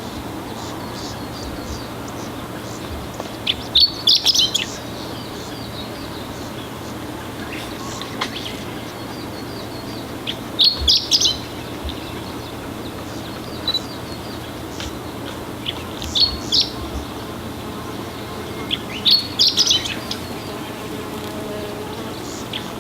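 Chestnut-eared bunting singing: four short song phrases of quick, high notes, a few seconds apart, over a steady low hum.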